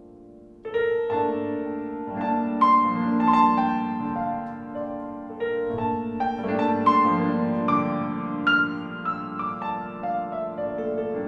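Solo piano music: a chord dies away, then about a second in a new chord is struck and a slow melody of single notes moves over held low chords.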